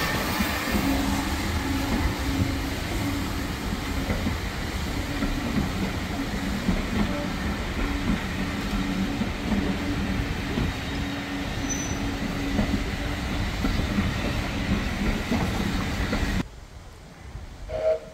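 Steam locomotive standing in steam: a steady hiss with a low hum that comes and goes. About sixteen seconds in it cuts off abruptly, leaving a much quieter background.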